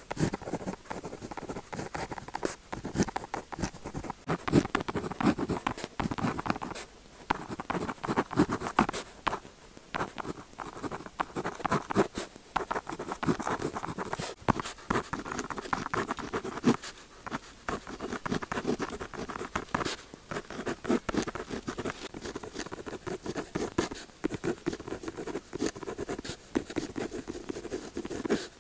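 Pen tip scratching across paper in quick continuous writing strokes, with small ticks as the pen lifts and touches down and a few short pauses between runs of writing.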